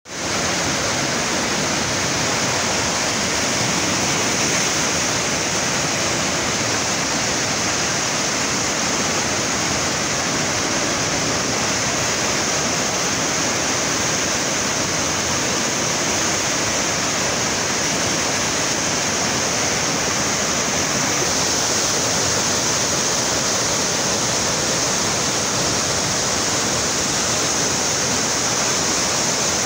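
Muddy river in flood, a fast brown torrent rushing past the bank with a loud, steady rush of water.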